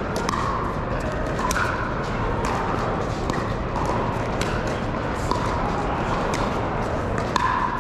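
Pickleball paddles striking plastic balls: many short, sharp pocks at irregular intervals from several courts at once, over a steady din of crowd voices in a large hall.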